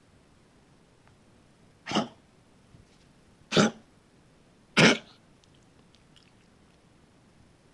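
Three short, harsh hacking coughs about a second and a half apart, the last one the loudest.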